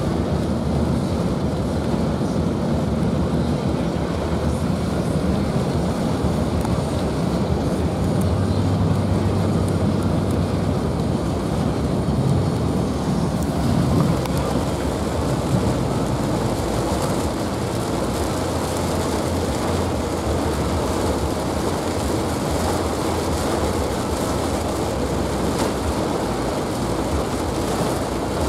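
Rain pelting a car's roof and windshield over steady tyre and road noise, heard from inside the moving car's cabin.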